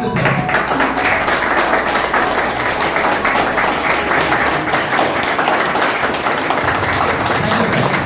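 A small crowd clapping steadily, a dense run of many hands applauding together.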